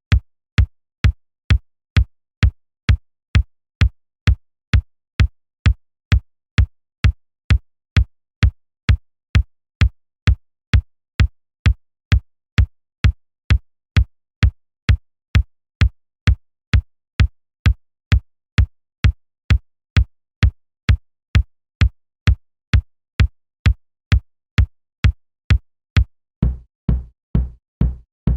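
A series of drum-machine-style kick drum one-shots, struck evenly about twice a second, each a deep thud with a sharp click on top. About 26 seconds in, a deeper, duller kick with a longer low boom takes over.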